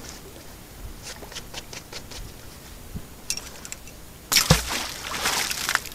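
A magnet-fishing magnet thrown out on its rope: light clicks and rustles of the rope being handled, then a little over four seconds in a sudden loud splash with a thump as it hits the water, the wash lasting over a second.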